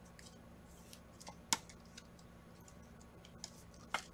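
Trading cards and clear plastic card sleeves being handled, giving a few sharp clicks and ticks, the loudest about one and a half seconds in and another near the end.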